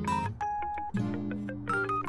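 Background instrumental music: a light melody of short picked or keyboard notes over held bass notes.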